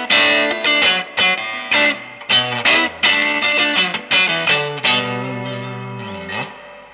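Electric guitar, a Stratocaster with Lollar '64 single-coil pickups, played through a Fender Blues Junior valve amp with little gain: a run of picked notes, then a last note ringing out from about five seconds in, its pitch dipping and coming back up as it fades.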